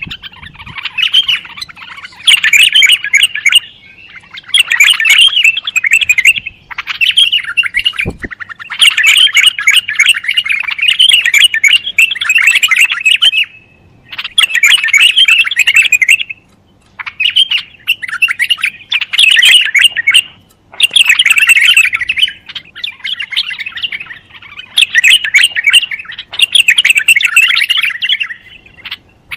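White-eared bulbul singing: a run of loud, quick chirping phrases of a second or two each, repeated with short pauses between them.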